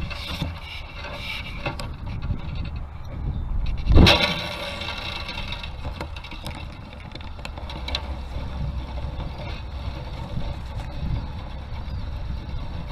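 Wind buffeting the microphone with a steady low rumble, and one sharp knock about four seconds in.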